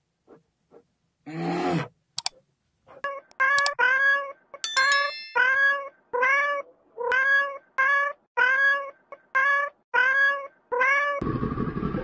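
Domestic cat meowing over and over, about a dozen short, evenly spaced meows. They follow a brief low growl. A bell-like ding chimes among them, and a deep roar breaks in near the end.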